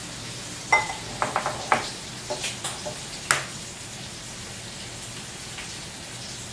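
Bacon frying in a pan with a steady sizzle. In the first half, a cluster of sharp taps and clicks as an egg is cracked against a drinking glass.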